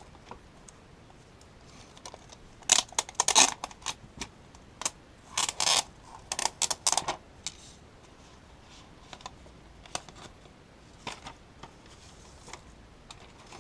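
Handling noise: clicks, taps and rustling of small objects being picked up and moved, in two short clusters about three and six seconds in, with a few lighter single clicks afterwards.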